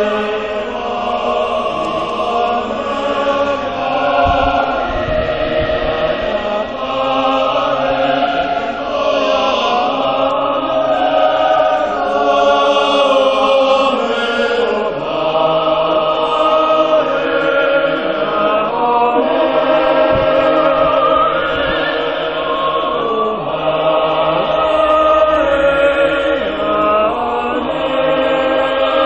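Large mixed choir of men and women singing in held, full chords.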